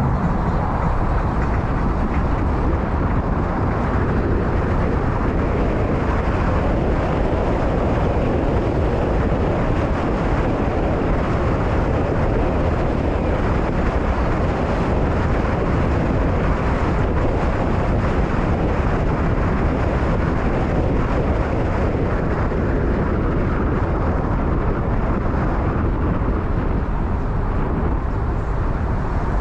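Steady road and traffic noise from a car driving in city traffic, an even rumble with no sudden events.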